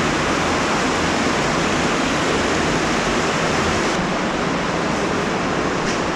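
Loud, steady rush of running water from an underground stream inside a cave.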